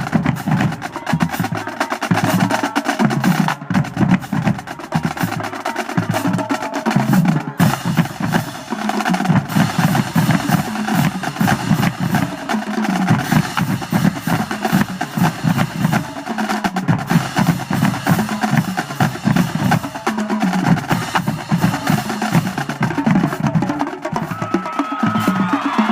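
Marching high school drumline playing a fast, dense cadence of snare-drum rolls and drum strokes without a break.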